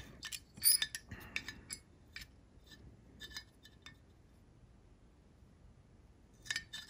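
Steel dial calipers clicking and clinking against a polished steel axe head as the jaws are slid and set on the eye. A run of light metal clicks comes in the first two seconds, a few more follow, and another short cluster comes near the end.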